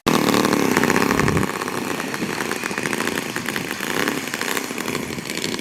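Small engine of an RC model airplane running, its pitch wavering. It is loudest for about the first second and a half, then steadies a little lower.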